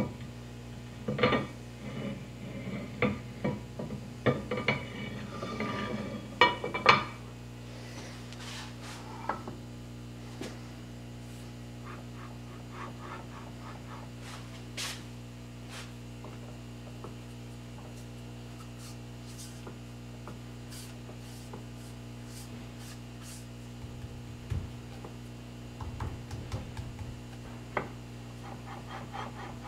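Cast-iron cross slide of a Hardinge HLV-H lathe handled on the saddle's dovetail ways: a run of metal knocks and clinks over the first seven seconds as it is set down, then faint ticks and a few soft thumps near the end as it is worked on the saddle to spot the dovetail fit. A steady low hum runs underneath.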